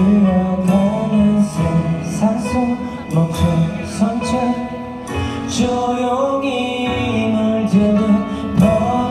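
A male singer sings a slow Korean ballad live into a microphone over backing music.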